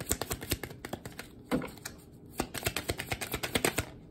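A deck of tarot cards being shuffled by hand: quick runs of crisp card clicks, several a second, broken by a short pause with a soft knock about a second and a half in.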